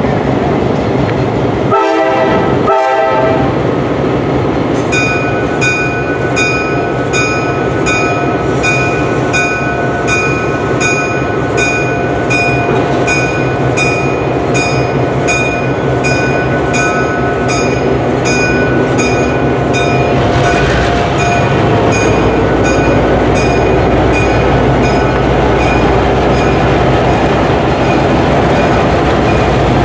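Diesel locomotives passing slowly with their engines running, while a bell rings steadily at about one and a half strokes a second from around five seconds in. The low engine rumble grows heavier in the last third as a second locomotive goes by.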